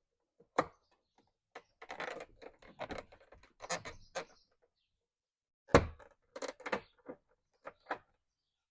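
A string of irregular clicks, taps and knocks from plastic truck door trim and the master window switch being handled and fitted, the loudest knock a little under six seconds in.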